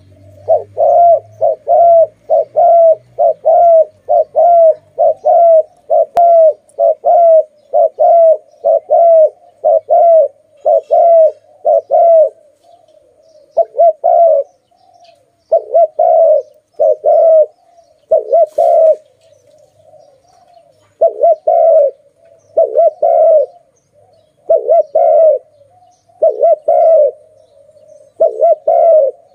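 Spotted dove cooing loudly and repeatedly. For about twelve seconds the coos come evenly, about two a second; after that they come in groups of two or three with short pauses between.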